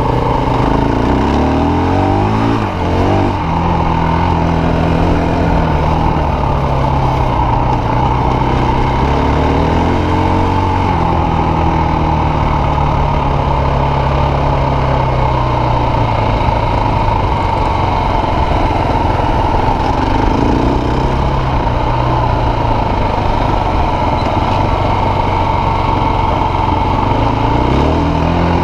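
Enduro dirt bike's engine running under way, heard from the rider's seat, its revs climbing sharply and dropping back several times as the throttle is opened and eased off.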